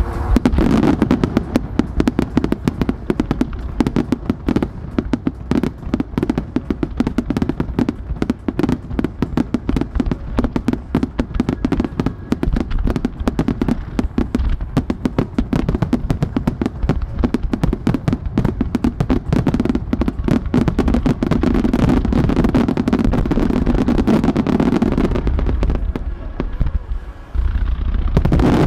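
Starmine fireworks barrage: aerial shells and ground-level mines firing in rapid succession, many bangs a second running together into a continuous crackling, booming volley. The volley dips briefly near the end, then a fresh loud salvo goes off.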